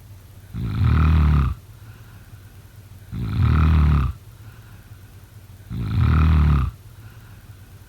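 A person snoring: three loud snores, each about a second long and about two and a half seconds apart, with softer breaths between.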